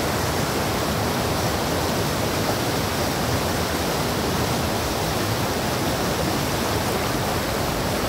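Fast mountain river rushing over boulders in whitewater: a steady, loud roar of water.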